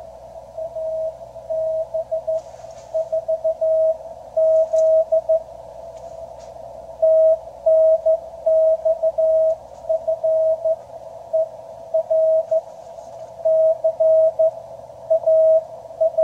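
Morse code (CW) received on a QRP Labs QCX transceiver: a single steady tone keyed on and off in dots and dashes. This is the other station's reply to an answered CQ, which the radio decodes as 'TNX FER CALL'.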